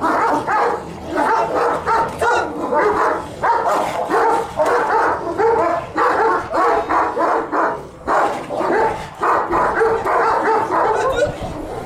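Several Kurdish shepherd dogs barking in a rapid, dense run while fighting, with a brief lull about eight seconds in.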